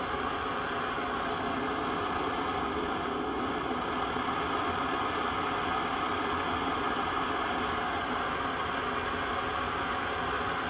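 Russian Primus PT-2 petrol stove burning steadily at full main combustion, a smooth, even rushing of the burner flame with no sputtering. It is quiet for a petrol burner.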